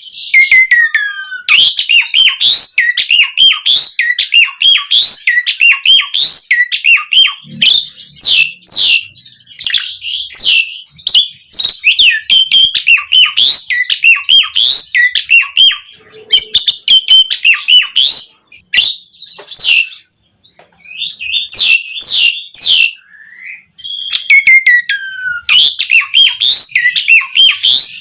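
Javan pied starling (jalak uren) singing a loud, fast run of chirps, whistles and sharp sweeping notes, in bursts broken by brief pauses.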